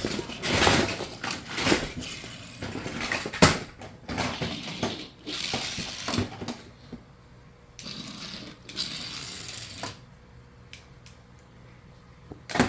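Magnetic toy blocks clattering and clicking as they are handled and piled, busiest in the first half with a sharp knock about three and a half seconds in, then scattered clicks.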